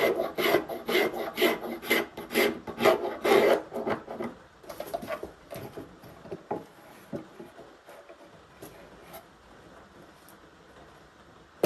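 A hand blade shaving a piece of wood held in a shave horse, in quick pulled strokes about two a second, then a few lighter scrapes before it goes quiet.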